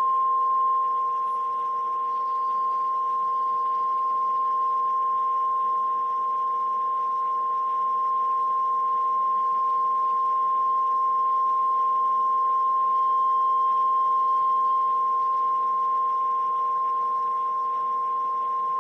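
Steady electronic test tone near 1 kHz, with a weaker second tone about an octave lower and a faint hiss underneath, fed through a compressor-limiter under test. Its level holds almost constant, dipping slightly about two seconds in and again near the end.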